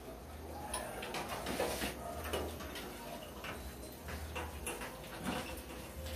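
Irregular metal clicks and light knocks as a rotisserie spit is fitted into the brackets of a Hanabishi countertop electric oven.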